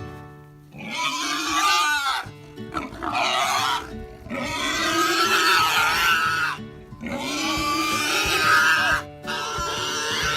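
Pig squealing in five long screams, each one to two seconds long with short breaks between them.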